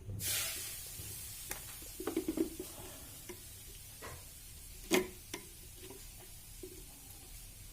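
Scattered small clicks and knocks of hands handling the UPS's battery wires, clips and plastic casing, the loudest click about five seconds in, after a brief hiss at the start that fades within a second.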